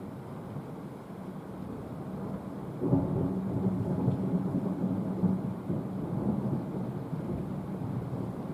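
Thunder: a sudden clap about three seconds in, followed by a rumble that slowly dies away.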